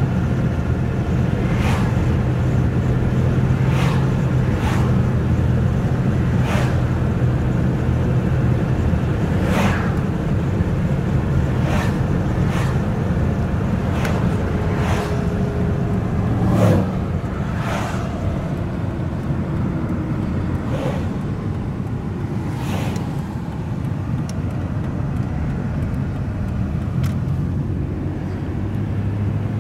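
Steady engine and road noise of a car driving along a road, heard from inside the cabin. Short sharp sounds come every second or two, with one louder knock about 17 seconds in.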